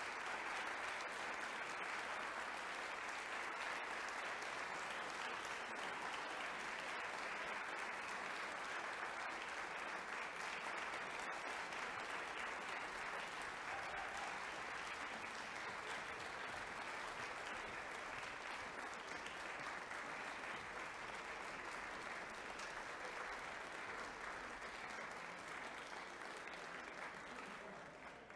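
Audience applauding steadily, slowly tapering off and dying away at the very end.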